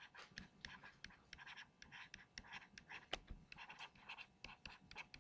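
Faint scratching of a stylus tip on a tablet screen, in short irregular strokes as words are handwritten.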